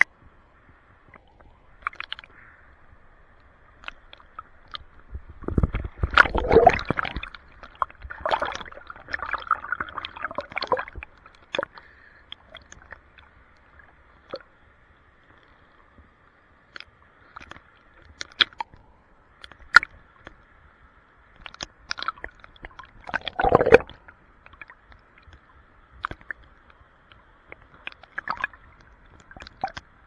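River water sloshing and gurgling at the surface right at the microphone, with irregular small splashes and clicks. There are louder bouts of sloshing about six seconds in and again about 23 seconds in.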